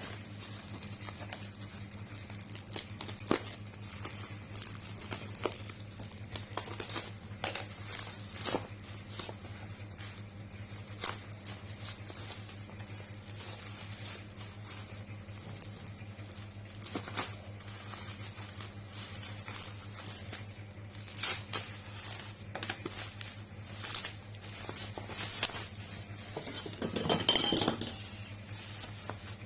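Hands unpacking a parcel: scattered clicks, taps and rustles of packaging and small hard plastic parts being handled, with a longer rustling stretch near the end, over a steady low hum.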